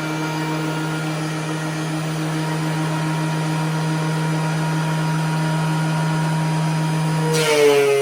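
DeWalt DW735 thickness planer running steadily under load as the cutting board feeds through the cutterhead. About seven seconds in there is a brief sharp burst, and the motor's pitch rises as the load comes off.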